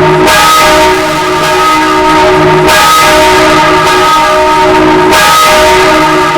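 Six church bells ringing together in a full peal: a loud, dense wash of overlapping strikes over long ringing tones, with heavier strokes coming round about every two and a half seconds.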